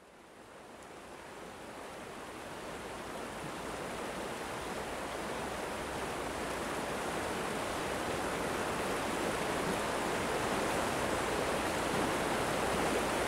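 Steady rushing of flowing water, like a stream or small waterfall, fading in from silence and slowly growing louder.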